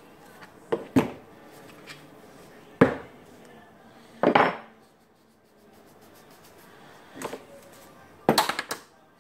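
Metal clinks and knocks of a cordless drill's chuck and gear assembly being pulled apart and set down on a wooden workbench: four separate clatters, the last a quick run of clinks.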